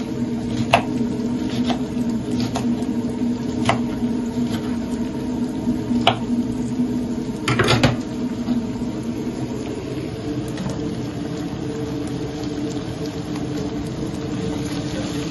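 Kitchen knife cutting a green bell pepper on a wooden cutting board: scattered sharp knocks of the blade on the board over the first eight seconds, then mostly only a steady low hum.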